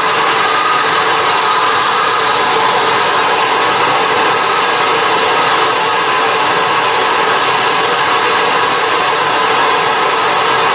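Propane hand torch flame burning with a steady hiss, heating a small W1 drill-rod steel bolt toward red heat for water-quench hardening.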